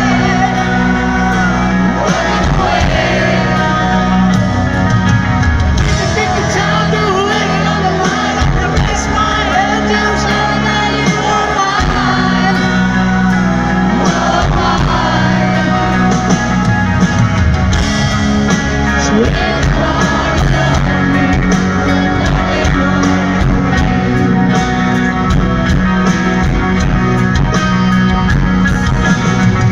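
Live rock ballad played in concert: a man singing at the piano over the band, recorded from the audience in a large hall.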